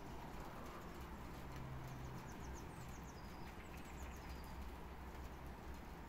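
Small songbirds chirping outdoors: several short falling notes and a brief rapid trill, over a steady low rumble.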